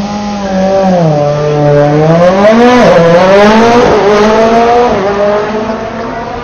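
Rally car engine revving hard as the car launches off the start line, its pitch climbing and then dropping sharply at each of three gear changes. It is loudest about three to four seconds in, then fades as the car pulls away.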